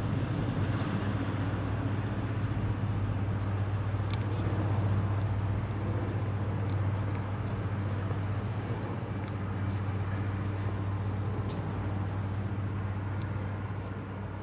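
Steady low drone of a large bulk carrier's engines carried across the water, a constant hum with a hiss of water and air over it.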